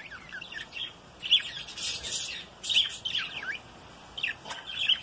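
Budgerigars chattering: a run of short, squeaky chirps, some sliding up or down in pitch, with a louder, harsher stretch of calls in the middle.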